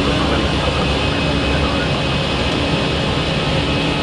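Airliner engine and airflow noise heard from inside the cockpit during the climb after takeoff: a loud, steady, even noise with a faint constant hum.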